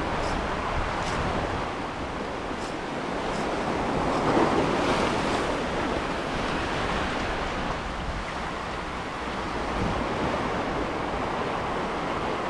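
Ocean surf breaking and washing in over a rocky shoreline, a steady rush that swells louder as a wave surges in about four seconds in.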